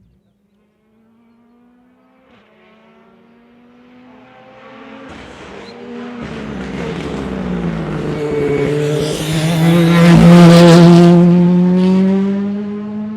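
Rally car approaching and coming through a tarmac bend, its engine growing steadily louder to a peak about ten seconds in. The engine note dips in pitch as the car slows for the bend, then climbs again as it accelerates out.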